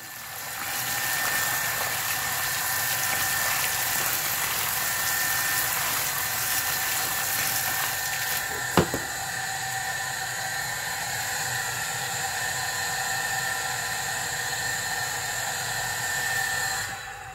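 Water pouring from a hose into a metal basin of snails, splashing steadily, with a thin steady whine. There is a single sharp knock about halfway through. The flow stops shortly before the end.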